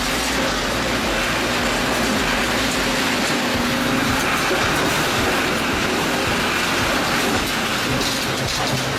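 Railway tie processing line machinery running: a steady, even mechanical noise with a faint hum underneath.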